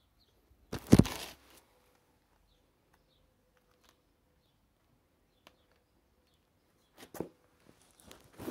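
A loud knock with rustling about a second in, then quiet with faint bird chirps, and a few sharp clicks and knocks near the end.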